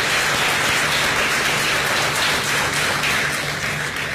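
Audience applauding, a dense spread of clapping that thins out near the end.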